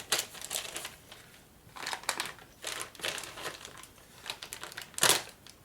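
Plastic packaging bags crinkling and rustling in irregular handfuls as small mount parts are unpacked, with one sharper, louder crackle about five seconds in.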